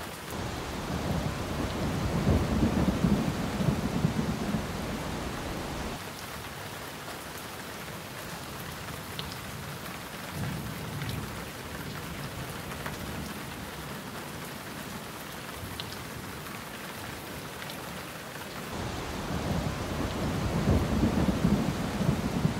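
Steady rain with long, low rolls of thunder, loudest a few seconds in and again near the end, with a weaker roll around the middle.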